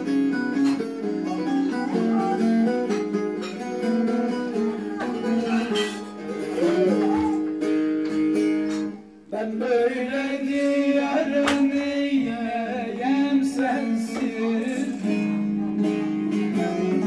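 Music: a Turkish folk song played on a plucked string instrument with a singing voice, with a brief break about nine seconds in.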